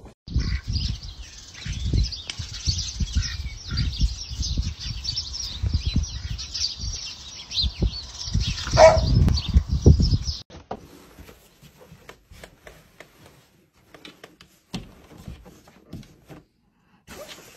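Outdoor scuffing and rustling with a bright hiss and low knocks for about ten seconds, and one short falling call about nine seconds in, from a yard where a dog walks beside a white domestic duck. It then cuts off and turns quiet, with only faint rustles.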